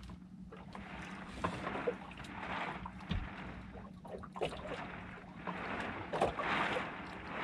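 Water slapping and lapping against the hull of a small boat drifting on swell, swelling about every two seconds, with wind on the microphone and a few light clicks.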